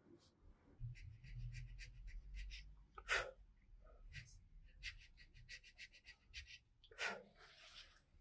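Faint scratching and light clicking of small handwork, with a low rumble in the first couple of seconds and two short sharp hissing bursts about three and seven seconds in.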